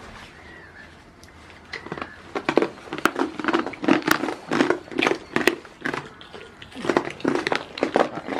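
Close, irregular rustling and scraping of a goat's head and fur rubbing against a jacket and gloved hand. It starts about two seconds in, in quick uneven strokes with a few sharp clicks.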